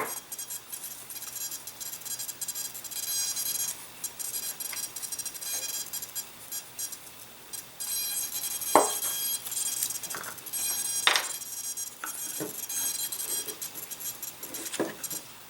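A thin, high-pitched electric buzz that comes and goes, typical of the powered-up micro servos driving the ailerons, with a few light taps and clicks from handling the small model.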